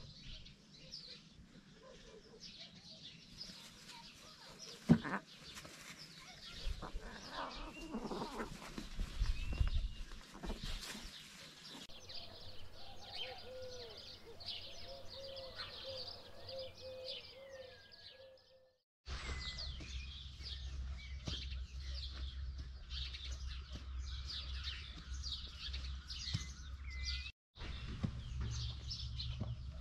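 Wild birds chirping and singing, many short high calls with a few whistled glides. A sharp knock about five seconds in, and a run of lower repeated calls a little before the middle; after a cut about two-thirds in, a steady low rumble runs under the birdsong.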